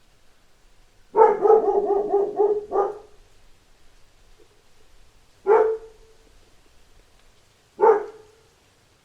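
A dog barking: a quick run of about eight barks starting about a second in, then two single barks a few seconds apart.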